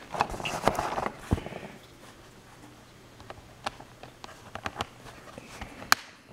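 Plastic bezel of an ASUS 1025c netbook's screen being pressed back on by hand, its snap tabs clicking into place. Rustling handling noise comes in the first second or so, then scattered sharp clicks, the loudest near the end.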